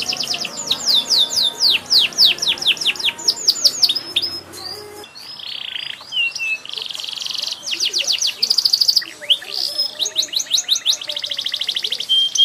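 Domestic canary singing continuously in varied phrases: fast trills of repeated down-sweeping notes, buzzy rolls about halfway through, and a short held whistle near the end.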